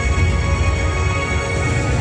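Music with sustained tones over a heavy low end, running steadily with no separate firework bangs standing out.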